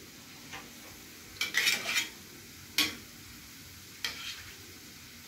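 Sesame-coated sweet potato balls deep-frying in hot oil, a steady sizzle, while a perforated steel skimmer turns them and clinks against the metal pan. There is a cluster of clinks about a second and a half in, a single sharp clink near three seconds and a lighter one at about four seconds.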